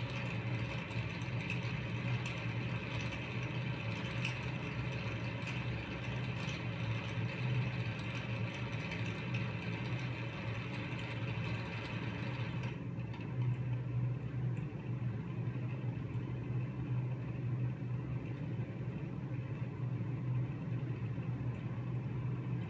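JEE window exhaust fan running after a cold start, a steady motor hum and whir with light scattered ticks in the first few seconds. Its bearings, which the owner says probably just need oiling, are behind the rough noise. About thirteen seconds in, the higher-pitched part of the noise drops away abruptly, leaving mainly the hum.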